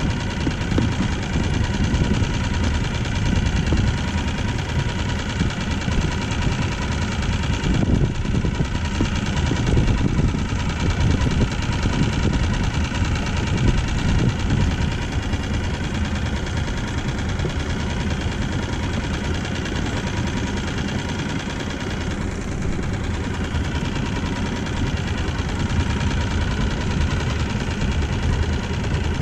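Small boat outboard motor running steadily at low trolling speed.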